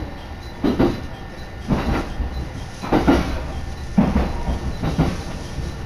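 Local electric train running along the track: the wheels clack over rail joints about once a second over a steady low rumble.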